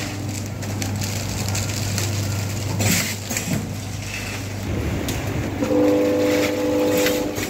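Chips pouch-packing machine running: a steady low hum that stops about three seconds in, with short clacks and plastic rustles. Near the end a steady horn-like tone sounds for about two seconds.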